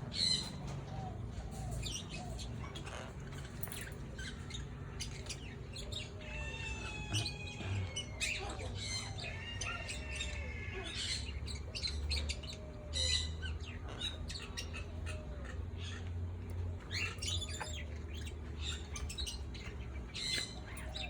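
Parrots squawking and chirping, with many short, harsh calls following one another.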